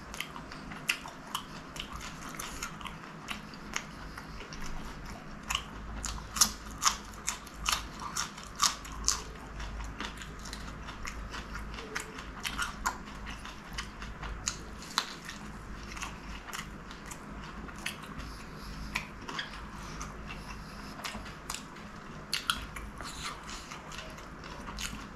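Close-miked chewing and biting of fried chicken samosa, with many sharp crunchy clicks of the pastry, thickest from about six to nine seconds in.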